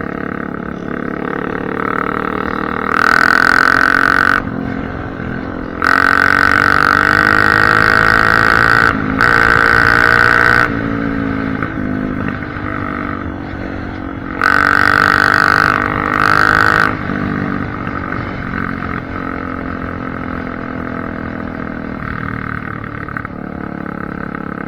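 Honda CRF250F dirt bike's four-stroke single-cylinder engine, run with no exhaust baffle, being ridden hard: the pitch rises and falls through the gears, with four loud wide-open-throttle surges of one to three seconds each, one of them broken briefly by a shift.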